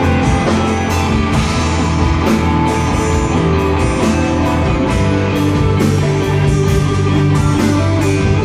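Instrumental rock music: electric guitars and drum kit playing steadily, without vocals.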